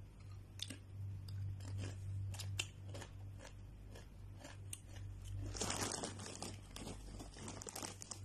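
Doritos tortilla chips being crunched and chewed close to the microphone: a run of short, sharp crunches, with a longer, denser burst about two-thirds of the way through. A steady low hum runs underneath.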